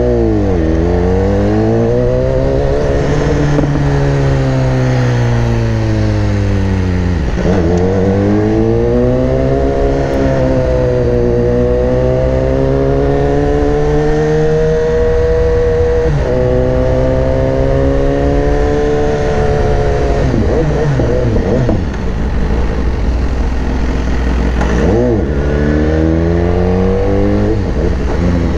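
BMW S1000R's inline-four engine under way, its pitch climbing steadily and then dropping sharply several times as the throttle is rolled on and off through the gears.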